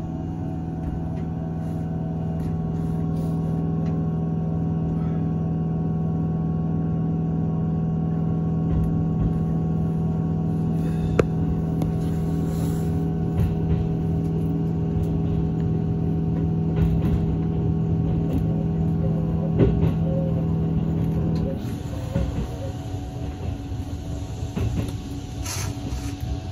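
Steady electric hum from a standing E657-series limited-express train at the platform, with a few sharp clicks. About twenty seconds in, the hum cuts off suddenly and leaves an uneven rumble.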